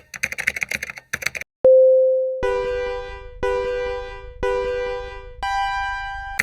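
Electronic sound effects: about a second of rapid typing-like clicking, then a single clear tone, then three identical beeps a second apart and a fourth, higher beep held longer, in the pattern of a countdown.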